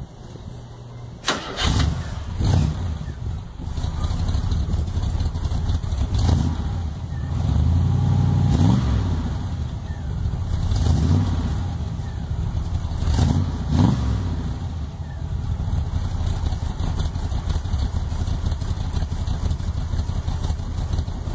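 Engine of a homemade tracked vehicle running through freshly rebuilt sheet-metal mufflers. It comes in suddenly about a second in, is revved up and back down several times, then runs steadily through the second half.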